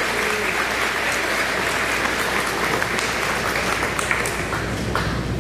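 Audience applauding steadily, with a few sharper single claps standing out, as a graduate receives a diploma.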